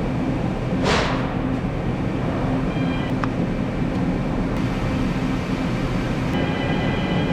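Steady rumble and hum of a running printing press, with a short burst of hiss about a second in and a small click around three seconds.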